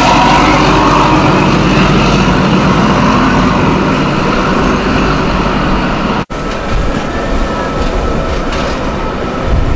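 XPT diesel power car running under load as it pulls away, its engine noise slowly easing. About six seconds in the sound cuts to the quieter rolling rumble of a double-deck electric suburban train passing, with a faint steady whine.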